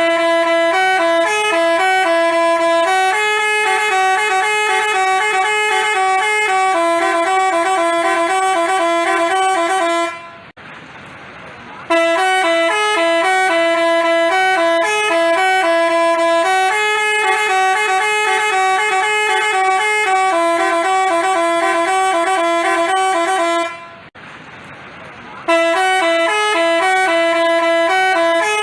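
Telolet basuri horn playing a tune in quick stepped notes, over and over. The tune breaks off briefly about ten seconds in and again about twenty-four seconds in.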